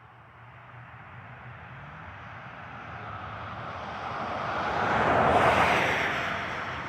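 A vehicle driving past: its engine and tyre noise builds steadily, peaks about five seconds in, then fades.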